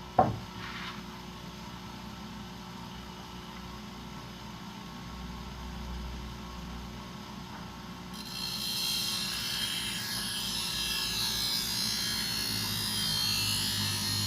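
A sharp knock just after the start, then a low steady hum. About eight seconds in, a loud hissing grind begins as the steel thickness planer blade is held against the bench grinder's wheel, and it runs on steadily.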